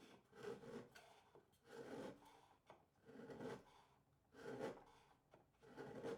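A hand tool scraping wood in slow, even strokes, about five of them, each around half a second long and repeated every second and a half or so; faint.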